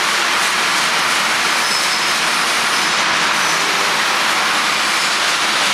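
Steady, loud hiss from a running Al-Al blister packing machine, even throughout with no press strokes or rhythm.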